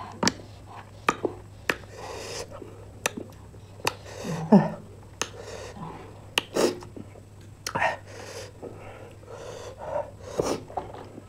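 Close-miked eating sounds: sharp wet lip smacks and mouth clicks at irregular intervals while chewing and licking fingers, with a few brief vocal sounds between them.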